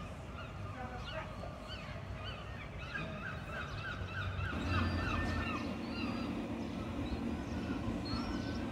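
Birds calling outdoors: many short, hooked calls, with a quick run of about eight repeated calls a few seconds in. A low steady hum comes in about halfway through.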